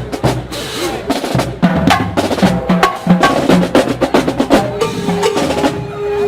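Marching band drumline playing a cadence: rapid, dense snare and drum hits with some pitched low drum notes. A long held note joins about five seconds in.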